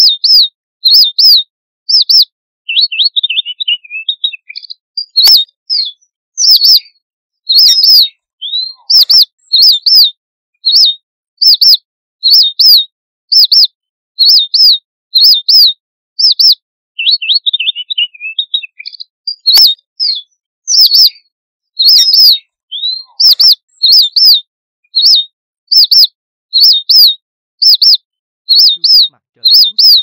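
Red avadavat (strawberry finch) giving its flock call: short high chirps, many in quick pairs, repeated about once a second. Twice the chirps give way to a brief stretch of softer, lower twittering.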